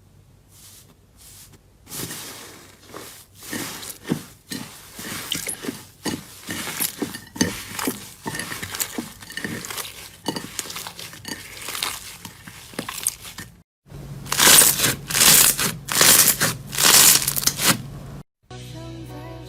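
Slime being squeezed and pressed by hand: a close run of short crackling, squishing sounds, loudest and densest for a few seconds near the end. Soft music starts just before the end.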